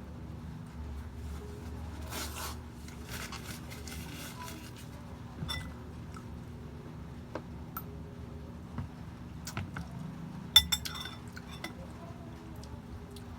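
Tableware clinking during a meal: cutlery and dishes clink and tap in scattered small clicks, with one sharp, louder clink about ten and a half seconds in.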